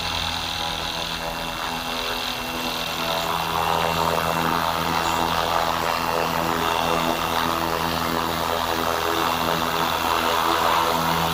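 FlyWing FW450 electric RC helicopter in flight: a steady whir of its spinning rotor blades and electric motor, a little louder from a few seconds in.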